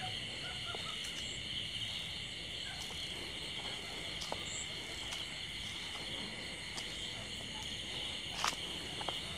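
Steady chorus of night insects, a continuous high-pitched trill, with a few faint ticks and one sharp snap about eight and a half seconds in.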